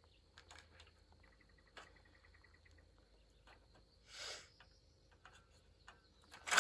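Faint scattered metal clicks and scrapes of a mower sickle bar being worked through its cutter-bar guards, with a louder scrape about four seconds in and a sharp click at the end. A faint steady high whine, like a cricket, runs underneath.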